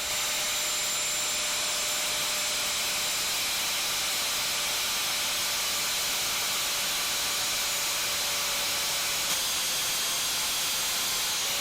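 Angle grinder's cutting disc cutting steadily through a seized steel suspension shaft, a constant high hiss with a faint steady whine that shifts slightly about nine seconds in.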